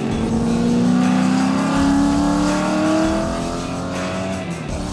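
Chevrolet V8 of a 1993 Holden Commodore VP touring car accelerating hard past on a racetrack, its pitch rising steadily for about three seconds and then falling near the end. Background music sits under it.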